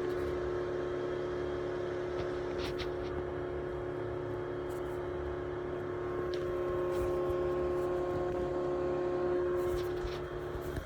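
A machine with badly worn bearings running with a steady whine of several held tones over a low hum, and a few faint ticks.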